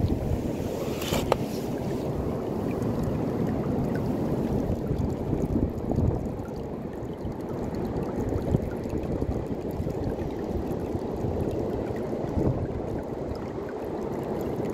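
Stream water running steadily through a small gold-panning sluice over its Dream Mat vortex matting, washing the fed sand through. A brief sharp splash-like sound about a second in.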